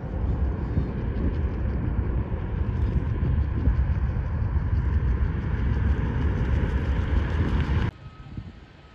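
Jet airliner coming in to land, a steady low rumble of engine noise with a hiss above it; it cuts off suddenly near the end.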